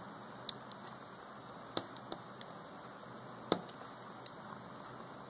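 A handful of faint small clicks and taps from fingers handling a Microsoft Lumia 535's circuit board in its plastic frame, over a steady low room hiss; the sharpest click comes about three and a half seconds in.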